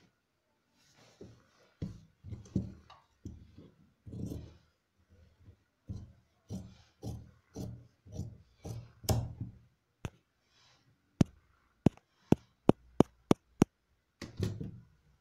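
Large tailor's shears cutting through the trouser fabric on a table in a series of snips, about two a second. Near the end comes a quick run of about seven sharp clicks, about three a second, then one more snip.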